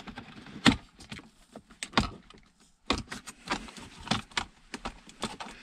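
Plastic clicks and knocks from the BMW E39 centre-console cup holder and its surrounding trim being worked loose by hand, coming irregularly throughout.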